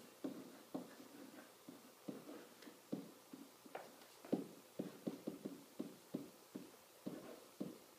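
Pen tapping and scraping on an interactive whiteboard as a line of words is handwritten: faint, irregular taps, closest together about four to six seconds in.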